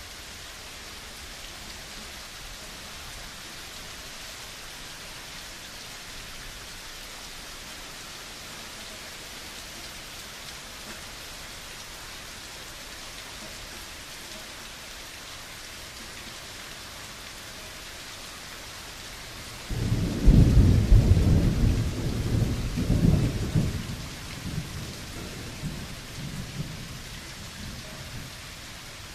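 Heavy rain falling in a steady hiss. About two-thirds of the way through a sudden loud thunderclap breaks in, rumbling low in several swells for a few seconds before fading back under the rain.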